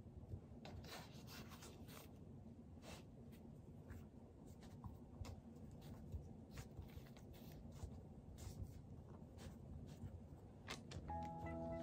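Faint rubbing and light scattered taps of hands pinching and pressing soft bread dough on a floured board. Background music comes in near the end.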